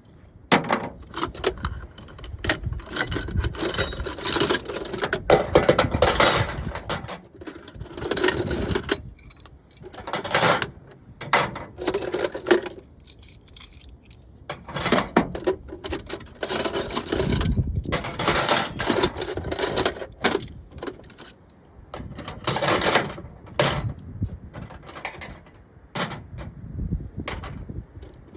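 Hand tools and small metal parts clinking and rattling in irregular bursts, with no engine running, as a string trimmer is taken apart by hand.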